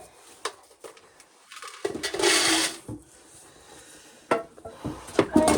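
Clatter from hand-shelling corn: scattered knocks and clicks of cobs and kernels against the sheller and containers, with a short rasping rattle about two seconds in.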